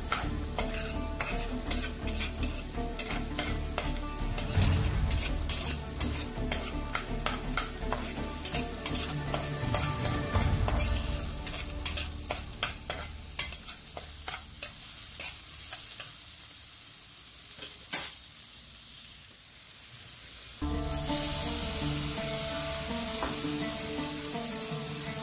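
Spatula stirring and scraping chopped onions and whole spices in a metal pan, with a light sizzle of frying on low heat. The scrapes come thick and fast at first, then thin out and quieten after about fourteen seconds.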